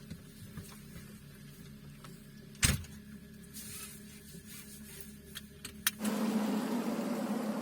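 A low hum with a few sharp clicks, then about six seconds in the Audi 80 turbo quattro's engine noise comes in suddenly and runs on steadily.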